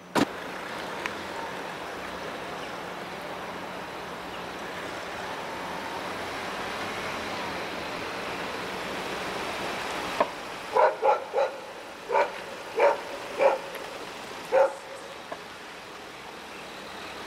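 The sliding rear door of a Ford Transit Custom van slams shut, followed by steady vehicle noise. Near the end, a dog barks about seven times in quick succession.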